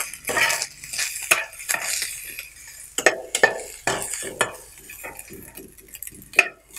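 Slotted spatula scraping and knocking against a nonstick frying pan in irregular strokes as diced chicken is stirred and tossed with ground spices, with the chicken sizzling lightly underneath.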